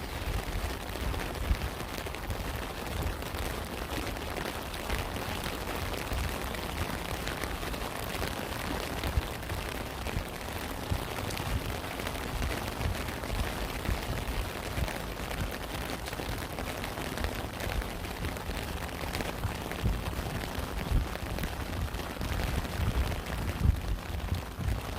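Steady rain, dense with individual close drop hits, over a low rumble.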